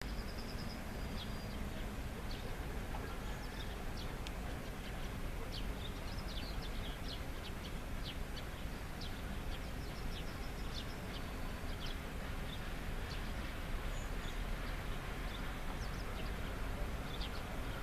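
Small birds chirping and singing in short high calls, over a steady low background rumble.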